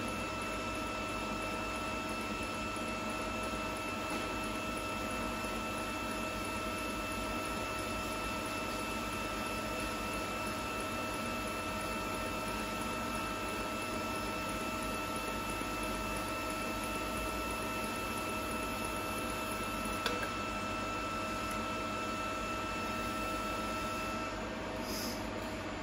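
Pulsed TIG arc welding stainless steel on a turning rotary table: a steady high-pitched hum over a steady hiss, with one sharp click about twenty seconds in. The hum stops shortly before the end as the arc is broken.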